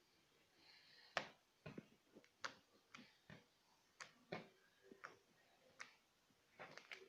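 Faint, sharp clicks and small pops, roughly one or two a second at uneven spacing, from white-glue slime being squeezed and stretched by hand.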